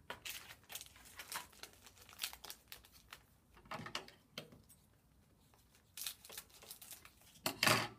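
Trading-card pack wrappers crinkling and tearing, with cards being handled between them, in short irregular rustles; the loudest burst comes near the end.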